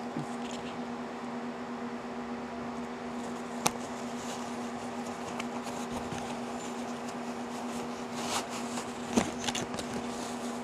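Packaging being handled while a box is pried open: one sharp click about three and a half seconds in and a run of crinkles and knocks near the end, over a steady low mechanical hum.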